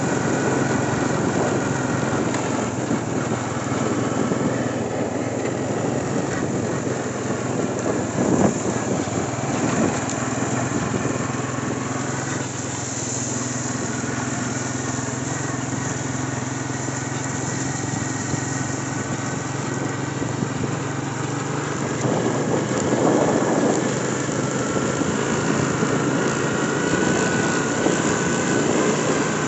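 ATV engine running steadily as the quad bike drives along, with a single knock about eight seconds in.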